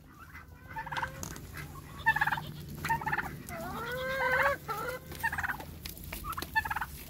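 Domestic turkeys calling among chickens: a string of short pitched calls about once a second, with one longer call that rises and then falls in pitch about four seconds in.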